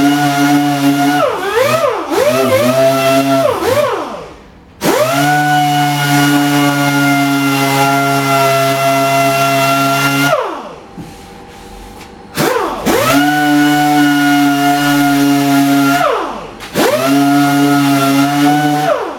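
Orbital sander running at a steady pitch while sanding filler on a plastic bumper bar. Its speed drops and recovers several times in the first few seconds, and it winds down and restarts three times: briefly about 4.5 s in, for about two seconds near 10 s, and briefly near 16 s.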